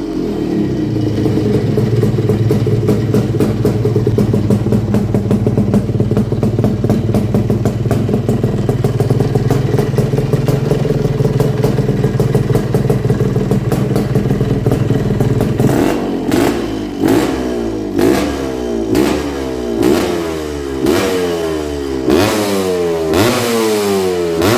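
Bultaco Frontera 370's single-cylinder two-stroke engine running at a steady speed, then blipped about nine times, roughly once a second, the revs falling away after each blip.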